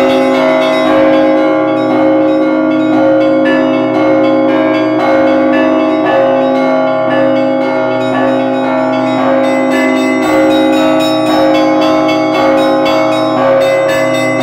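Russian Orthodox church bells rung by hand from a belfry, their clappers pulled by ropes: a continuous rhythmic peal of small bells struck in quick succession over the steady ring of the larger bells.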